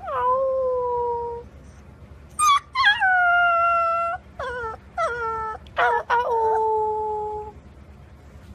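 Golden retriever puppy howling: three long howls, each dropping briefly in pitch at the start and then held steady, with short yips in between. It stops about a second before the end.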